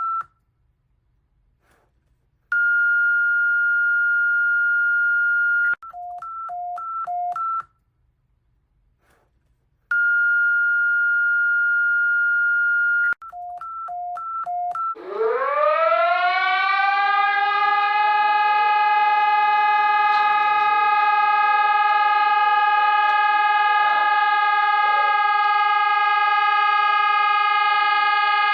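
Emergency alert tones: after a couple of seconds of silence, a steady electronic beep lasts about three seconds, followed by a quick run of alternating high and low beeps; the pair repeats once. About halfway through, a civil-defense-style siren winds up in pitch and then holds a steady wail.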